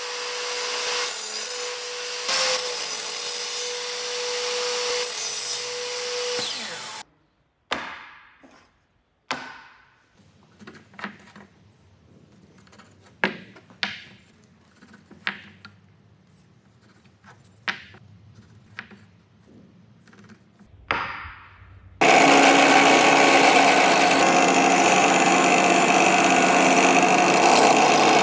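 A table saw running and cutting through a wooden block, stopping abruptly about seven seconds in. Then scattered light taps and scrapes of a pencil and awl marking the block, and from about twenty-two seconds in a drill press boring into the end of the block, loud and steady.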